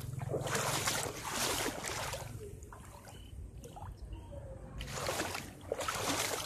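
Footsteps wading through floodwater, each stride sloshing and splashing, about one a second. It goes quieter for a couple of seconds in the middle, then the splashing strides start again.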